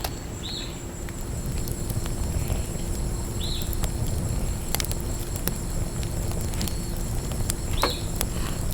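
Outdoor ambience: a steady low rumble with scattered sharp clicks and three short bird chirps, about half a second in, at three and a half seconds, and near the end.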